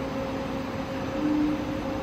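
NL 4000L CNC turning center running with a steady machine hum and a high steady tone, as the turret carriage travels along the bed. About a second in, a louder whine swells briefly, then eases off.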